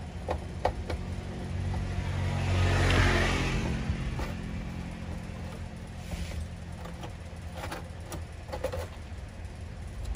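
A motor vehicle engine running steadily, swelling louder about three seconds in and fading again, like a vehicle passing close by. Through it come a few light clicks and taps as the clear acrylic cover of a car amplifier is handled and lifted off.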